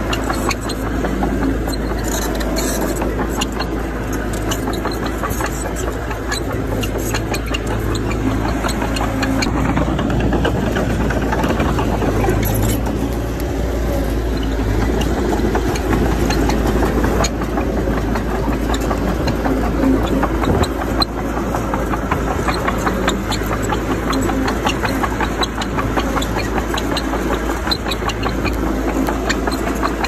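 Engine of heavy earthmoving equipment running steadily, with a continuous patter of small clicks and rattles.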